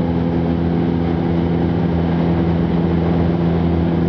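A machine running steadily, a constant low hum with an even rushing noise over it, with no change in pitch or level.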